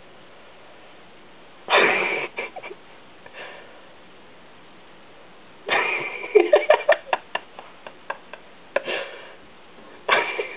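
A tabby cat pawing at a window pane from outside: several bursts of squeaky rubbing and scraping on the glass, the longest about six seconds in, followed by a quick run of claw taps.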